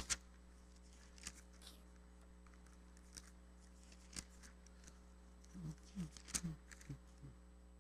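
Faint rustling and small clicks of paper pages being handled and turned on a pulpit, over a low steady room hum, with a sharper click right at the start.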